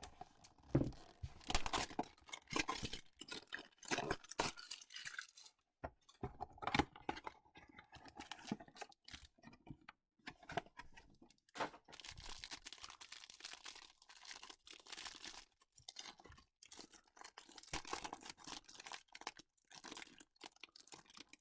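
A trading-card hanger box being torn open by hand: irregular tearing and crinkling of the cardboard and wrapping, in short rasps and clicks.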